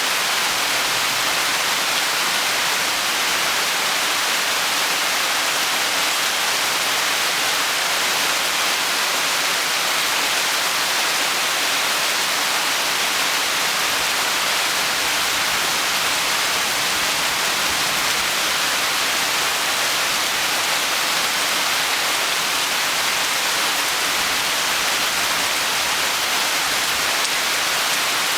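Steady rainstorm downpour: an even, unbroken hiss of rain with no single drops standing out.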